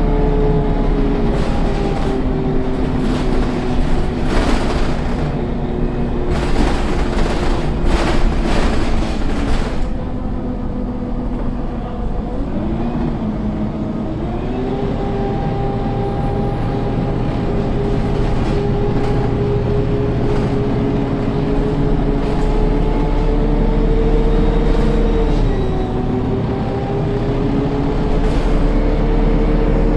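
2009 MAN Lion's City city bus heard from inside the cabin: its diesel engine and four-speed Voith automatic gearbox whine steadily, the pitch sinking slowly with some rattling for the first third, then climbing as the bus pulls away. About two-thirds in the whine drops suddenly at a gear change and climbs again. The gearbox whine is the strange noise the uploader notes.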